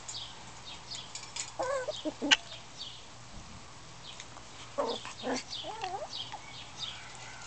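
High squeaky yips and wavering whines from six-week-old miniature schnauzer puppies at play, in two short bouts. A sharp click sounds once about two seconds in.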